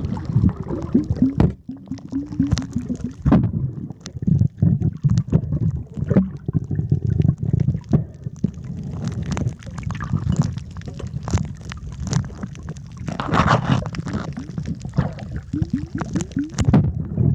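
Muffled underwater water noise picked up by a submerged camera: low rumbling and bubbling with irregular knocks, and a louder bubbling burst a little past two thirds of the way through.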